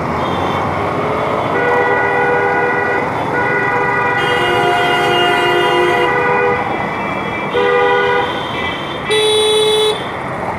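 Vehicle horns honking in street traffic over steady road and engine noise: a long blast of several overlapping horns lasting about five seconds, then two short toots near the end.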